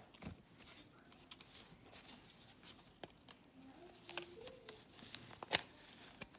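Light clicks and scrapes of a black silicone tablet case being flexed and pulled off an iPad mini by hand, with one sharper click about five and a half seconds in.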